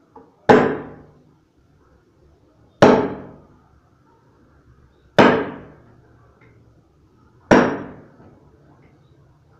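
Heavy blows struck into a large tree-trunk log while it is cut up: four sharp strikes about two and a half seconds apart, each with a brief ringing tail.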